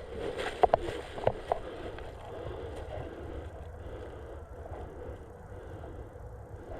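Steady low rumble and rustle on a body-worn GoPro action camera's microphone, with a few soft clicks or knocks in the first second and a half.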